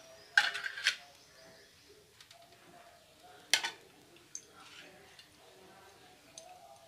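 Kitchen utensils clattering: a quick cluster of metal knocks and clinks about half a second in, then one sharp clink at about three and a half seconds and a few faint ticks.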